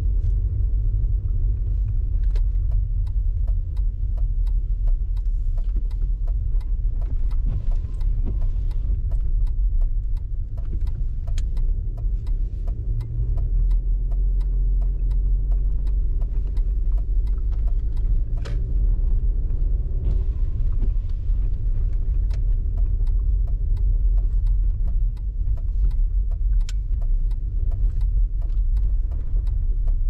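Car driving on snowy roads: a steady low rumble of engine and road noise, with many faint ticks throughout and a slight swell of the rumble about halfway through.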